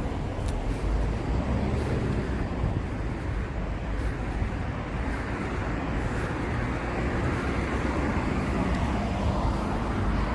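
Street traffic: a steady wash of passing cars with engine and tyre noise, swelling slightly and easing with no single vehicle standing out.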